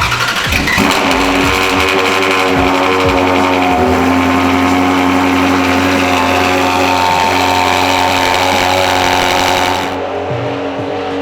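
Ferrari 360's flat-plane V8 firing up with a sudden loud burst through its catless Capristo exhaust in an underground garage, then holding a steady high idle. The level drops a little near the end as the idle settles.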